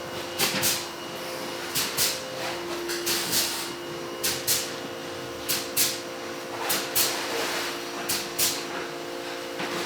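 Rhythmic scraping strokes, in pairs about every second and a quarter, over a steady mechanical hum.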